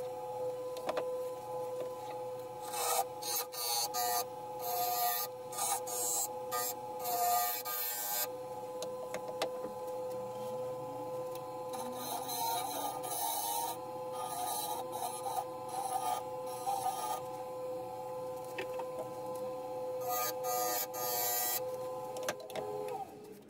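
Wood lathe running with a steady motor whine while turning tools cut the spinning bubinga-and-ash segmented blank in irregular short bursts of scraping, hissing cutting noise. Near the end the lathe is switched off and the whine drops away.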